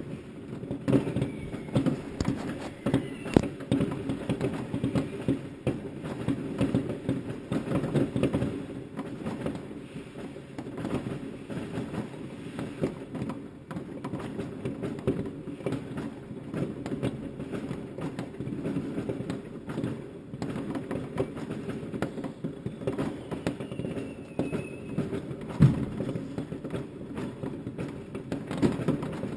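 Many fireworks going off across the town at once: an unbroken rumble of distant bangs and crackles, with two louder, sharper bangs about three seconds in and near the end, and one or two faint whistles.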